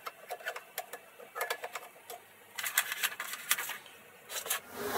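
A thin metal tool scraping and clicking inside an electric motor's end bearing housing, digging out the old grease so that the bearing can be repacked. The sound comes as irregular clusters of small clicks and scrapes, with short pauses about two seconds in and again near the end.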